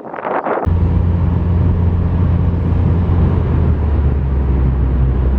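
Steady low drone of a car's engine and tyres on the road, heard from inside the car, cutting in abruptly about half a second in after a brief bit of speech.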